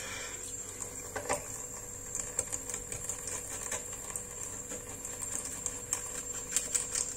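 Fish being scaled, the scaler scraping over the scales in a run of quick, irregular rasping clicks.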